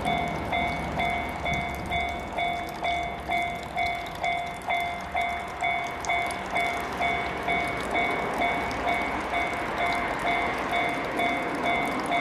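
Japanese level-crossing warning bell ringing in a fast, even, repeating chime. Under it, the running noise of an approaching JR West 113 series electric train grows louder in the second half.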